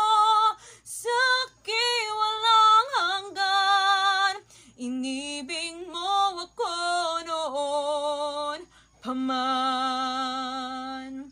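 A woman singing a Tagalog worship song: several short phrases with brief breaths between, ending on a long held note near the end.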